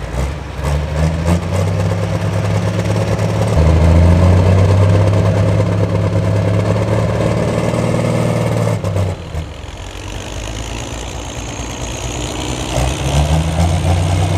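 Pro Stock pulling tractor's turbocharged diesel engine running steadily off load, growing louder a few seconds in, dropping away sharply about nine seconds in, and building up again near the end.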